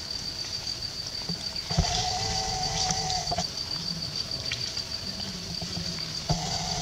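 Insect chorus: a steady high-pitched drone. Twice, about two seconds in and near the end, a steady mid-pitched tone starts with a click and lasts about a second and a half.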